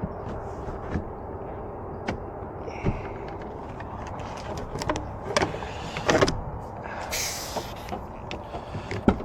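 Scattered clicks and knocks of lockout tools working on a car door, over the steady hum of an idling vehicle, with a short hiss about seven seconds in.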